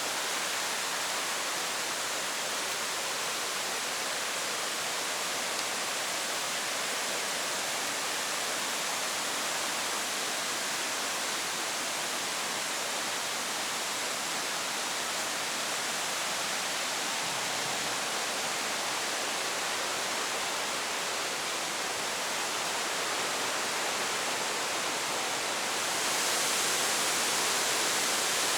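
Waterfall: a steady, even rush of falling water, a little louder near the end.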